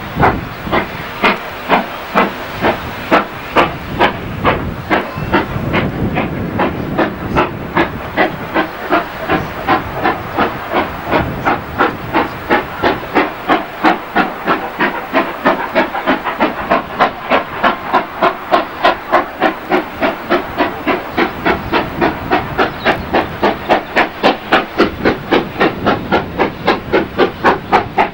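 GWR 'Hall' class 4-6-0 steam locomotive no. 4920 Dumbleton Hall hauling a train, its exhaust beating loudly and evenly. The beats quicken from about two a second to about three a second as it gathers speed.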